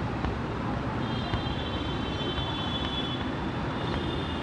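Steady low background rumble, with a faint high-pitched whine that comes in about a second in.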